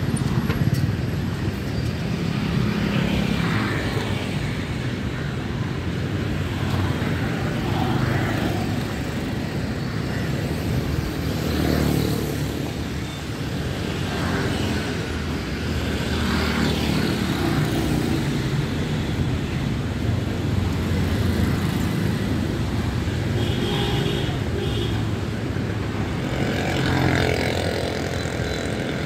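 Busy road traffic: motorcycle and scooter engines running and passing close by over a steady hum of other vehicles.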